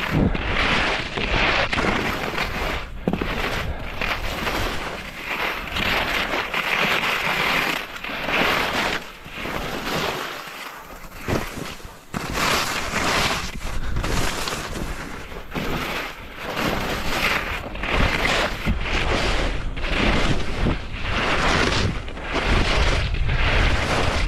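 Skis scraping over firm, wind-packed snow through a mogul field, in a run of surges roughly a second apart as the skier turns from bump to bump. Wind buffets the microphone. The sound eases briefly near the middle as the skier slows.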